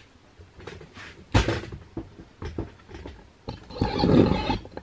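A magnetic-base dial indicator stand being moved about on a metal plate. There is a sharp knock about a second and a half in, a few small clicks, then a longer scraping rustle near the end.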